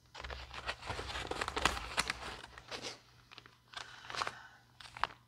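Plastic packaging crinkling and rustling as first-aid items in clear zip bags are handled and pulled from a fabric pouch, busiest in the first three seconds, then lighter rustles.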